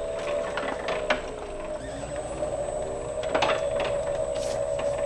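Motor-driven letterpress platen press running, with a steady hum that dips briefly in pitch about two seconds in. There are light clicks near the start and a louder clack about three and a half seconds in.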